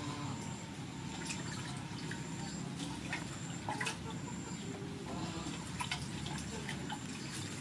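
Water splashing and dripping in a large stainless-steel bowl as hands stir and lift noodles soaking in cold water, with scattered small splashes and drips.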